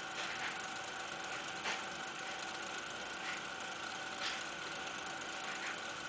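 Faint steady hiss with a thin high whine running through it and a few soft, irregular clicks.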